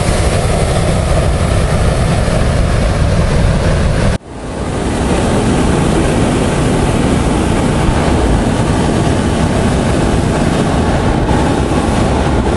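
Hot-air balloon inflator fan running steadily during cold inflation. After a sudden break about four seconds in, a loud, even rushing noise continues.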